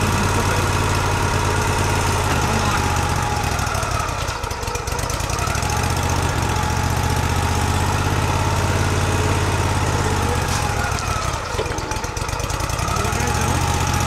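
Wood-Mizer portable sawmill's engine running steadily, its level dipping briefly twice.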